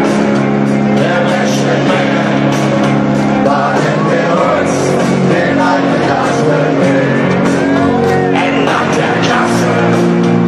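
A rock band playing live through a stadium PA, with voices singing over steady held chords, heard from high up in the stands.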